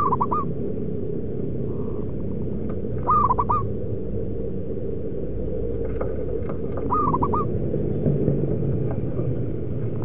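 Zebra dove cooing: three short phrases, each a quick run of three or four soft coos, over a steady low background noise.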